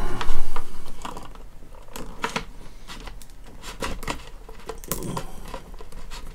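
Hard plastic clicking and tapping as a small sword accessory is worked into an action figure's stiff plastic hand, with irregular sharp clicks, the loudest in a cluster right at the start.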